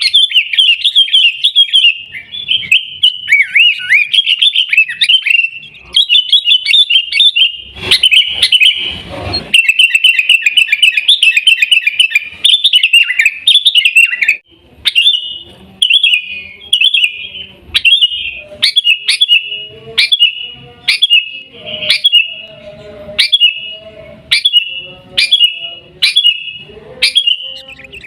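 Sooty-headed bulbul (kutilang) calling: rapid, chattering, warbled phrases for about fourteen seconds, then short repeated calls about once a second. A brief low rumble comes about eight seconds in.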